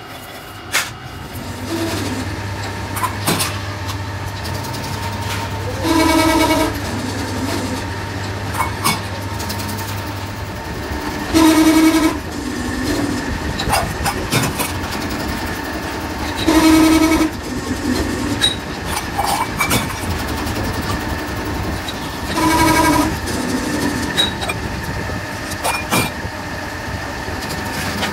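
A four-column metal-forming press pressing cut metal discs into oil filter shells. Each stroke gives a loud, pitched squeal lasting under a second, four times at about five-and-a-half-second intervals. Scattered metal clicks and knocks come between the strokes, and a steady low hum of the machine stops about a third of the way in.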